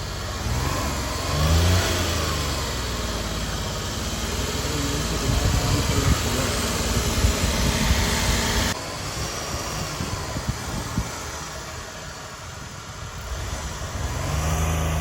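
A car engine revving up and dropping back a few times over a steady hiss, from a vehicle stuck in floodwater. The hiss cuts off abruptly a little under nine seconds in, and the engine revs again near the end.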